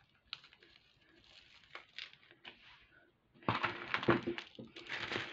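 Faint clicks and rustles of handling, then about three and a half seconds in, loud crinkling of plastic bead packaging being picked up and handled.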